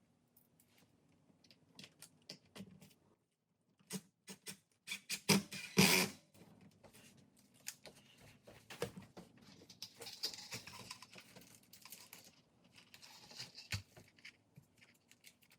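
Small clicks and short scrapes of hand work as metal picture hangers are screwed into a canvas's wooden stretcher bar, with a louder scraping rustle about five to six seconds in.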